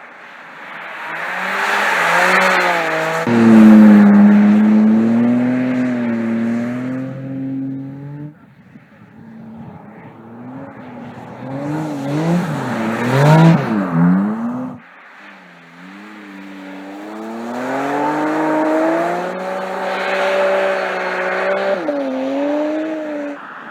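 Porsche 718 Cayman GT4 RS's naturally aspirated flat-six exhaust under hard driving, the revs swinging up and down in three loud stretches. The middle stretch has quick rises and falls in pitch, and the first is the loudest.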